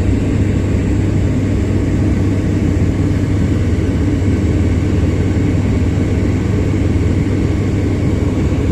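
Steady airplane cabin noise in flight: a constant low engine drone with rushing air, unchanging throughout.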